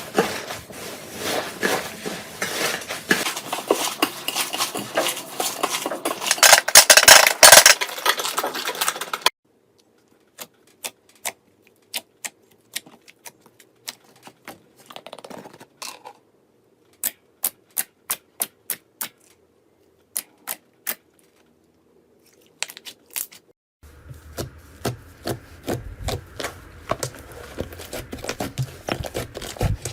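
Slime being handled by hand: about nine seconds of dense crackling and popping, then a sudden change to scattered single clicks and pops, then denser clicking again with a low hum underneath near the end.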